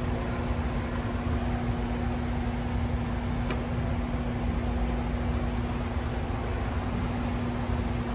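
Steady fan-like hum: a low droning tone over an even rushing noise, unchanging throughout.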